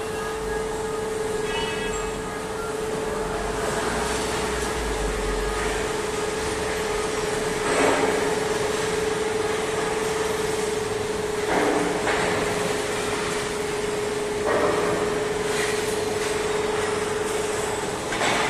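Steel rebar rolling mill machinery running with a steady hum, and four louder bangs a few seconds apart in the second half.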